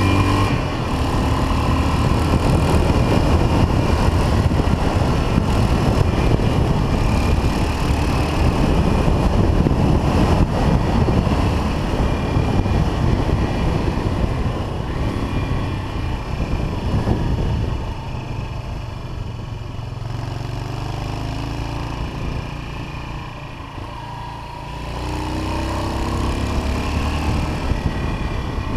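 Yamaha XT 500's air-cooled single-cylinder four-stroke engine running under way, mixed with heavy wind rush on the microphone. About two-thirds in, the wind eases and the engine's low, even note comes through more clearly. Near the end the revs rise again.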